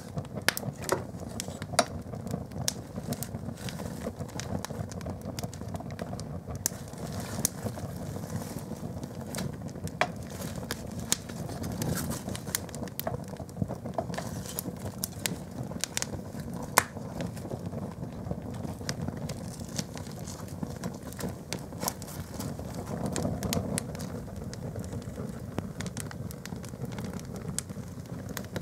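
Open fire burning a canvas-and-rubber plimsoll on a fireplace grate: a steady low noise of the flames with frequent sharp crackles and pops.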